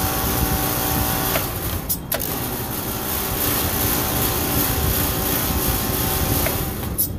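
Walk-in freezer condensing unit with a scroll compressor, running with a steady mechanical hum. The unit is short-cycling.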